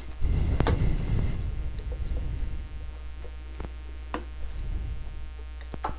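A steady low hum, with rustling handling noise for the first second or so, then several sharp clicks as a motorcycle's fuel filler cap is shut and locked with its key.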